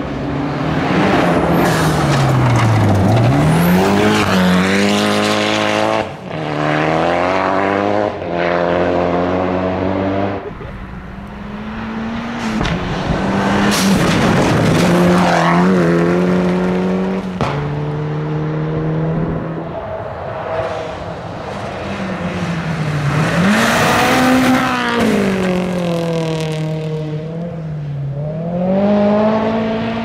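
Rally cars at speed on a loose gravel stage, engines revving hard, their pitch dropping and climbing repeatedly through gear changes and lifts as the cars pass one after another.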